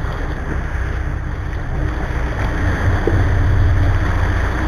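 A Cabo 40 sportfishing boat's diesel engines running with a steady low rumble, mixed with the rush of churning wake water and wind buffeting the microphone.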